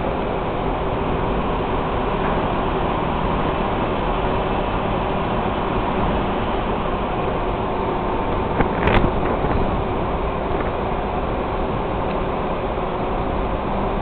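Steady rumble and hum of a ship's engines and machinery, heard from the open deck, with a few short clicks about nine seconds in.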